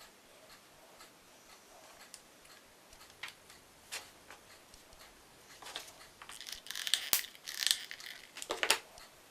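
Small parts being handled on a tabletop: faint scattered ticks, then from a little past halfway a cluster of sharp clicks, taps and crinkly rustling as glued bearing parts are pressed and fitted together.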